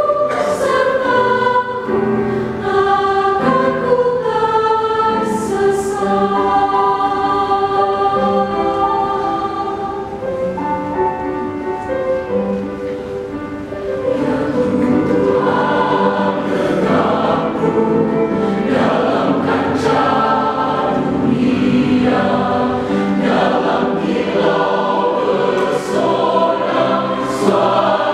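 Mixed choir of men's and women's voices singing a hymn in parts under a conductor. It eases off into a quieter passage for a few seconds, then comes back fuller and louder about halfway through.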